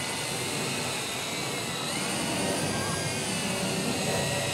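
Quadcopter drone flying overhead, its propellers giving a steady high-pitched whine that rises in pitch and gets a little louder about two seconds in.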